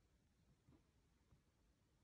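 Near silence: room tone with a few faint handling ticks.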